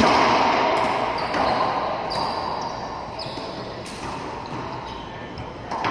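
Racquetball struck hard with a racquet, the crack echoing around the enclosed court and dying away slowly. Sneakers squeak on the hardwood floor several times, and the ball is hit again twice near the end.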